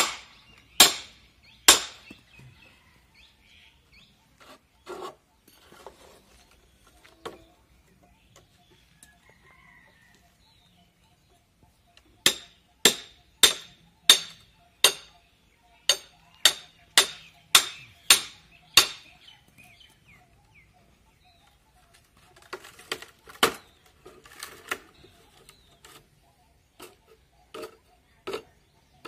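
Hammer striking a metal chisel driven into a green bamboo pole to split it into strips. There are two sharp strikes at the start, then a quick run of about a dozen strikes roughly two a second from a little under halfway in, and later a cluster of softer knocks and a few more strikes near the end.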